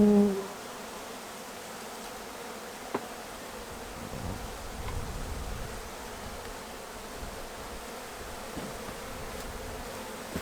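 Swarm of honey bees buzzing steadily around an opened hive, with one bee buzzing loudly and close right at the start. A single sharp tick about 3 seconds in and a low rumble a little later.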